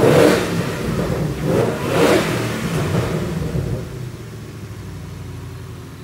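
Roush TVS 2650-supercharged 5.0 L Coyote V8 with long-tube headers, revved in two blips about two seconds apart, then settling back to a quieter steady run.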